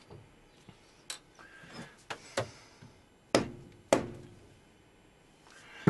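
A steel block being tapped down in a milling-machine vise with a soft-faced hammer: a few light clicks and knocks, then two louder taps about half a second apart near the middle, seating the block on the parallels.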